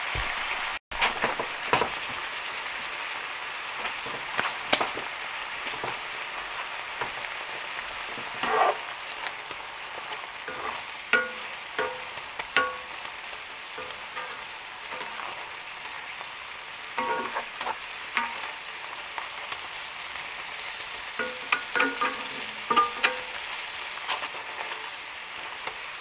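Sliced red onions sizzling as they caramelize in a cast-iron skillet, a steady frying hiss. A spatula scrapes and knocks against the pan in short bursts every few seconds as the onions are stirred.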